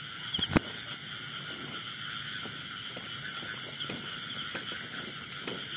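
A steady night chorus of calling insects and frogs, an unbroken high trilling drone, with a sharp click about half a second in and faint rustling of footsteps through grass.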